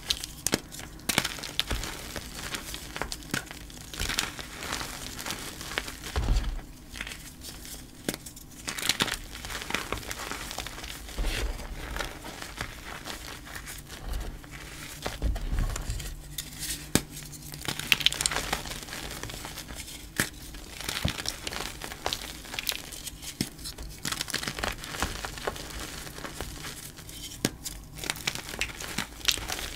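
Hands crushing and crumbling chunks of dyed gym chalk into loose powder: a continuous run of irregular dry crunches and crackles.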